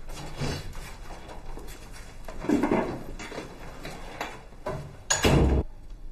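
A few knocks and scrapes, with a short, sharp bang about five seconds in, the loudest sound.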